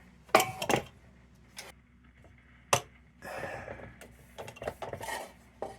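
Sharp metallic clicks and clinks from a wire bail and tin lantern parts being handled and fitted together, with one louder knock a little under three seconds in, a brief scraping rustle about halfway, and lighter ticks near the end.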